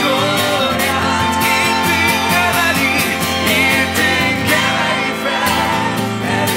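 Live worship band music: an acoustic guitar strummed in a steady rhythm, with singing without clear words.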